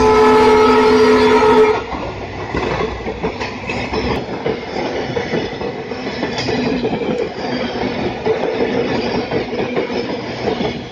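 Train horn sounding a multi-note chord that cuts off about two seconds in, followed by the train rolling past with loud, uneven wheel-on-rail noise and scattered clicks.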